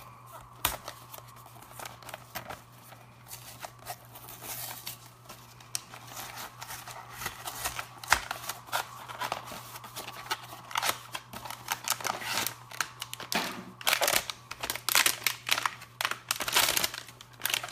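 A mini-figure blind box being opened by hand: the packaging rustles, crinkles and tears, with many small clicks. The handling gets busier and louder over the last few seconds.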